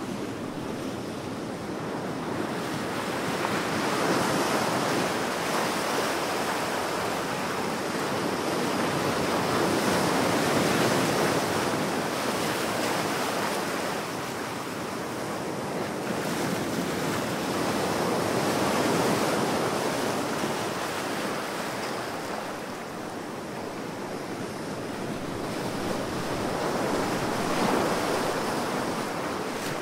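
Powerful ocean surf: waves breaking and washing in as a continuous rush, swelling and easing about every eight seconds, four swells in all.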